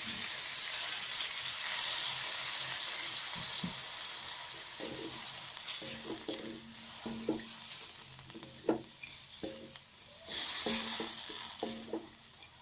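Water poured into a pan of hot oil and fried chili, shallot, garlic and tomato, sizzling loudly at first and slowly dying down. After that a spatula scrapes and clacks against the pan as it is stirred, with a short burst of sizzling again near the end.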